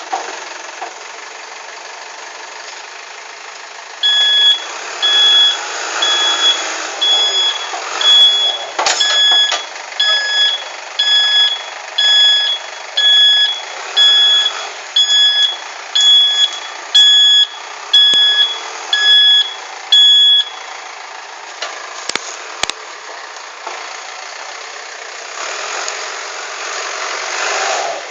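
Caterpillar 424B backhoe loader's diesel engine running, with its reversing alarm beeping about once a second. The beeping starts a few seconds in and stops after about sixteen seconds, with a couple of sharp knocks along the way.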